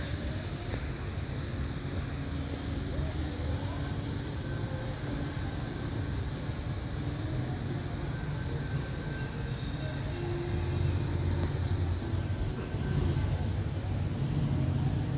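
Steady high-pitched insect drone that does not break, over a low rumble.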